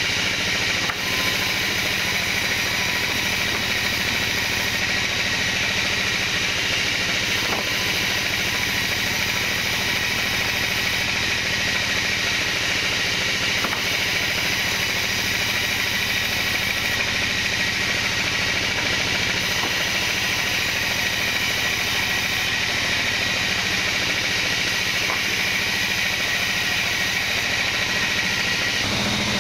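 Band sawmill running steadily, its blade sawing lengthwise through a squared kenanga log. A constant machine hum runs under the hiss of the cut.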